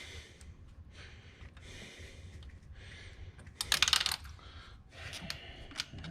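Hand work on metal bolts: a short burst of rapid metallic clicking about three and a half seconds in, with a few single clicks and soft rustling around it.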